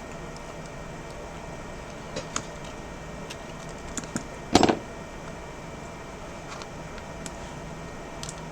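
Small sharp clicks and taps from handling phone parts and tools while the new screen's cables are reconnected to the iPhone 11, with one louder knock about halfway, over a steady room hum.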